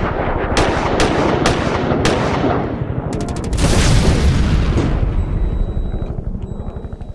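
Intro sound effects of rapid machine-gun-like fire with sharp cracks every half second or so, a loud rushing burst about three and a half seconds in, then the rattle fading out.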